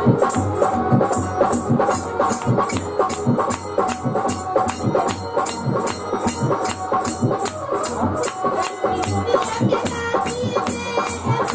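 Instrumental music: a rattling hand percussion instrument keeps a steady beat of about three strokes a second over drums and a held melody line.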